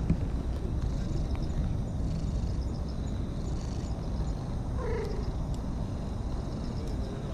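Ginger-and-white cat purring steadily while being stroked, with one short meow about five seconds in.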